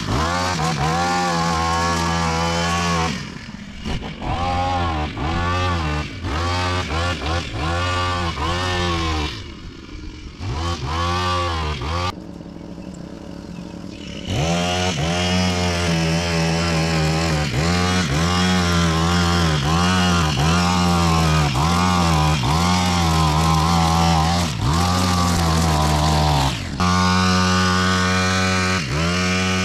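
Petrol string trimmer engine running at high speed, its pitch dipping and recovering again and again as the cutting line takes load and the throttle is feathered. It drops back to idle for a couple of seconds about twelve seconds in, then opens up again.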